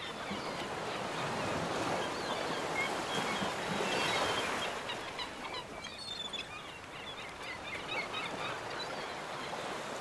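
A flock of birds calling in many short, scattered chirps over a steady rushing background noise.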